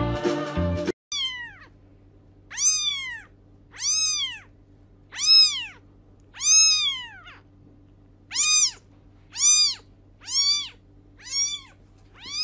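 A kitten meowing about ten times, roughly once a second. Each meow is high-pitched and rises then falls in pitch; it starts after a second of background music cuts off.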